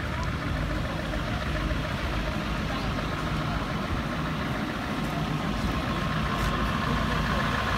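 Heavy truck's diesel engine idling steadily.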